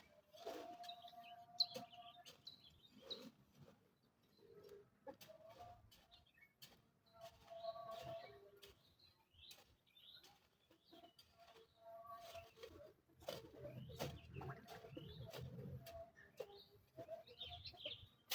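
Faint bird calls with chickens among them: short repeated calls and a few higher chirps, broken by scattered clicks and knocks.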